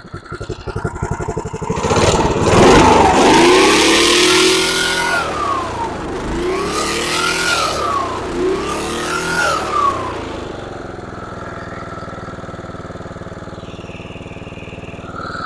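Simplicity rear-engine riding mower's small engine running and revved three times, the pitch rising and falling each time, then settling to a steady idle about ten seconds in.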